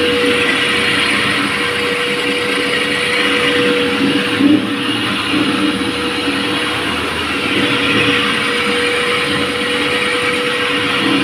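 Electric single-head concrete floor grinder grinding a cast concrete floor as it is pushed back and forth, with its mounted shop vacuum running to pull up the dust. A loud, steady machine noise with a constant hum under a hiss, unchanging throughout.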